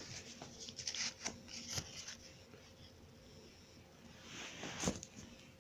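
Faint handling noise: light clicks and rubbing of small objects being moved about, with a soft swell of hiss and a click near the end.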